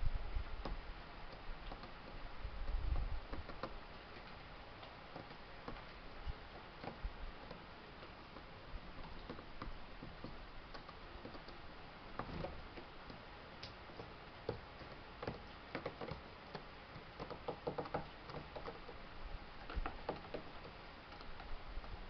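Small birds, among them a great tit, pecking at seeds on a hard terrace floor: faint, irregular light tapping clicks, coming in quicker clusters toward the end. A brief low rumble about three seconds in.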